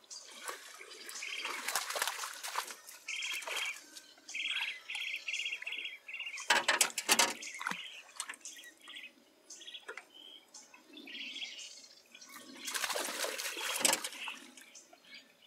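Small birds chirping in short repeated notes, some in quick runs of about five a second. Several louder rough bursts of noise break in; the loudest, full of rapid clicks, comes about seven seconds in.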